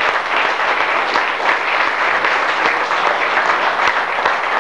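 Audience of adults and children applauding, many hands clapping steadily.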